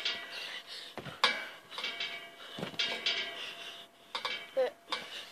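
Trampoline springs jangling and creaking as someone bounces on the mat, with a couple of sharp landing thuds.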